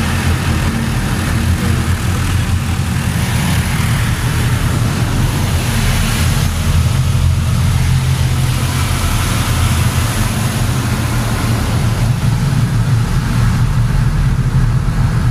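Automatic car wash heard from inside a minivan's cabin: a loud, steady rumble of the wash machinery with water spraying and hissing against the body and windows.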